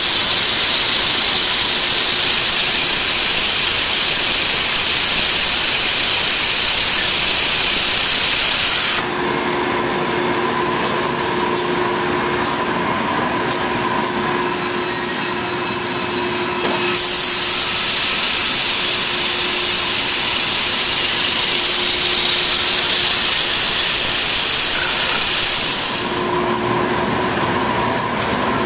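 Automated log milling machine at work on a squared log. A loud, even hiss lasts about nine seconds and drops to the machine's steady hum. About eight seconds later the hiss starts again for another nine seconds, then drops back to the hum.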